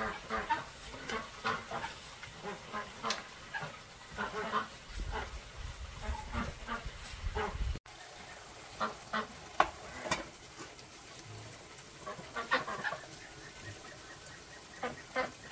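Domestic waterfowl on a farm calling over and over in short calls that come in clusters, loudest about halfway through.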